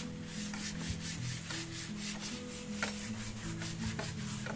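A wooden plank being sanded by hand, with quick, rough back-and-forth rubbing strokes.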